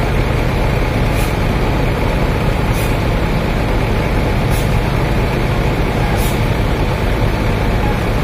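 Large bus diesel engine running steadily at close range, a deep, even rumble. Short faint hisses recur about every one and a half to two seconds over it.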